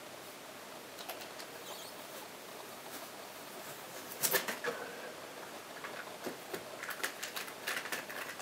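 A plastic energy-saving power board and its cord being handled and set down: faint hiss at first, then a burst of rustling and clatter about four seconds in, followed by a run of small clicks and taps.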